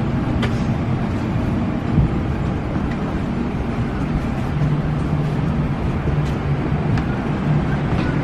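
Steady low hum of an Airbus A319's cabin ventilation with the aircraft parked after landing, holding a constant low tone. Faint clicks and a light knock about two seconds in come from passengers moving down the aisle.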